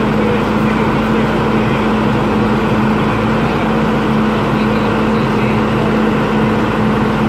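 Volvo FMX truck's diesel engine running steadily at constant speed, a continuous hum with one strong steady tone.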